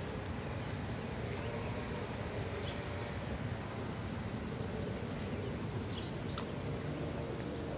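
Outdoor ambience: a handful of short, high bird chirps now and then over a steady low rumble and a faint steady hum.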